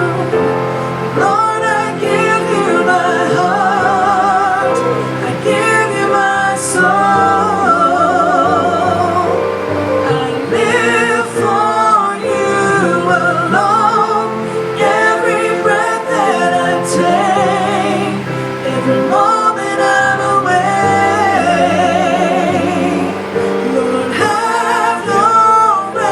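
Gospel worship song: sung vocal lines with a wide vibrato over sustained held accompaniment chords, continuous throughout.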